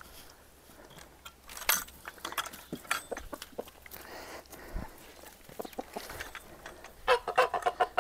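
Chickens clucking in a poultry run, with a few short sharp sounds about two seconds in and a run of quick repeated calls near the end.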